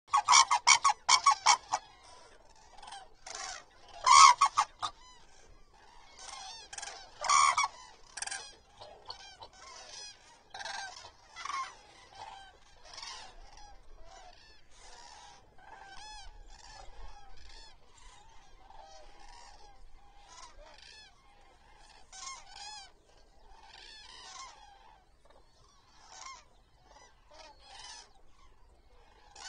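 A flock of common cranes calling: loud trumpeting calls in quick runs over the first two seconds and again around four and seven seconds in, then many fainter calls overlapping from across the flock.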